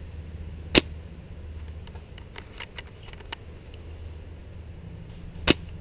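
Two sharp shots from an upgraded WELL MB01 (L96-type) spring-powered bolt-action airsoft sniper rifle, a little under five seconds apart, with a run of light mechanical clicks between them.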